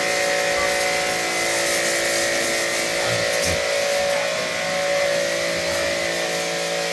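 A small motor running steadily, a constant multi-tone hum over a steady hiss.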